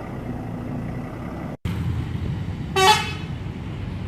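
Bus diesel engine rumbling steadily, with one short, loud blast of a multi-trumpet 'telolet' air horn about three seconds in.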